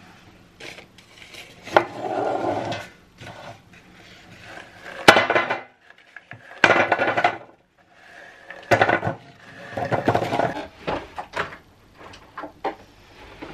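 Small hard peppernut cookies (Danish pebernødder) being put by the handful into a vintage metal tin, clattering against the tin and each other in a series of irregular bursts.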